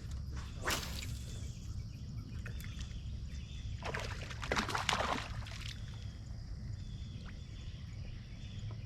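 A hooked largemouth bass splashing at the surface beside a fishing boat as it is brought in, a short splash under a second in and a longer flurry about four to five seconds in, over a steady low rumble.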